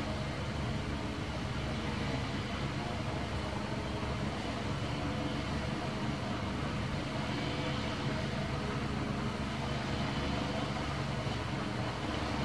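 Steady low mechanical hum and rumble, unchanging throughout, with faint steady tones in it and no animal calls standing out.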